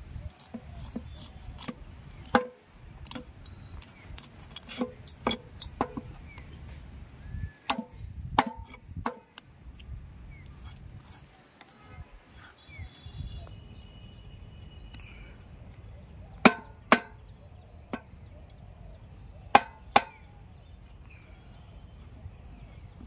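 Large curved knife chopping through Indian mackerel onto a wooden tree-stump block: a series of sharp, irregular chops, several in quick pairs. There is a lull of several seconds in the middle.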